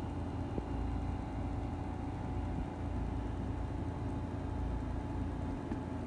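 Steady low rumble with a faint constant hum underneath, and no distinct events.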